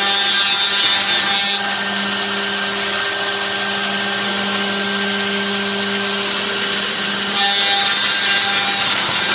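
CNC woodworking machine cutting wood: a steady spindle whine over rough cutting noise. It is louder in the first second and a half and again near the end.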